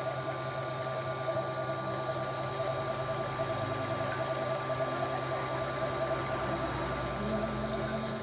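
Manual lathe running steadily, a constant machine hum with a fast, even pulsing.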